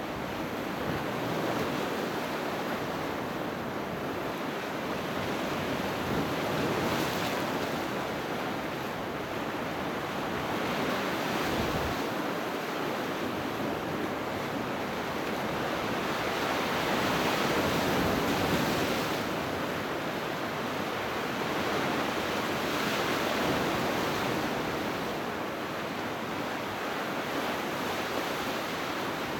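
Sea waves breaking and washing ashore: a steady rush of surf that swells and eases every few seconds.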